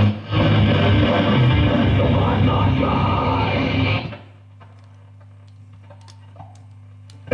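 1937 Marconi 549 valve console radio playing rock music with electric guitar from a broadcast station. About four seconds in, the music drops away as the dial is turned off the station, leaving a steady low hum from the set.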